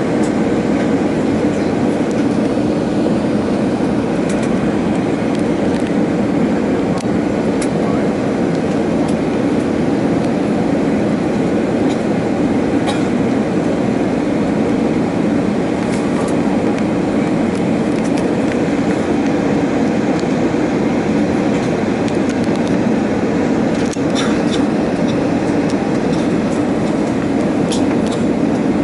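Steady drone inside a jet airliner's cabin on descent: engine and airflow noise, with a few faint ticks.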